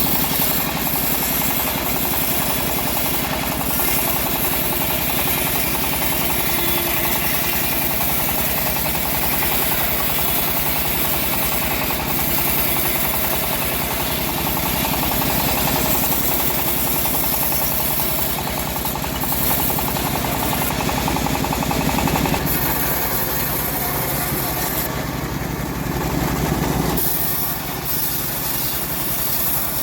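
Engine of a homemade bandsaw mill running steadily while the saw cuts old teak logs.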